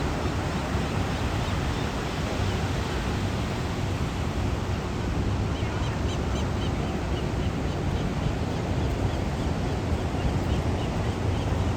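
Steady rushing ocean surf. From about halfway through, a quick run of short, repeated bird calls, several a second, from the feeding seabirds.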